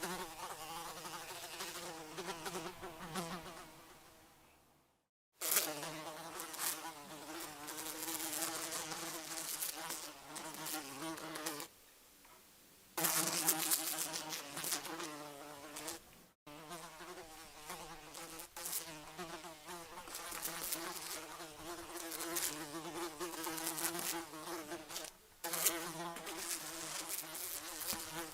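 Housefly buzzing in flight, a wavering drone that rises and falls as it moves, in several spliced stretches: it fades out about four seconds in, drops away briefly near the middle, and resumes each time with a sudden cut.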